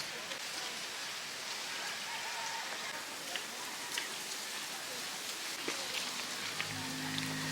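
Steady rain falling, a continuous hiss with scattered faint drop ticks. Near the end, steady musical tones come in.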